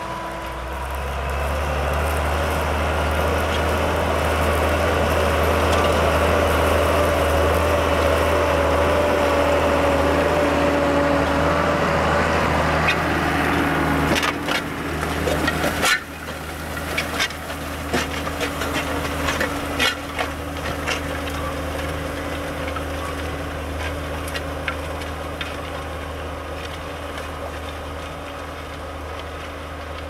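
Farm tractor's diesel engine running steadily under load as it pulls a disc plough through the soil. After a cut about halfway through, scattered sharp clicks and knocks come from the discs and frame working the ground.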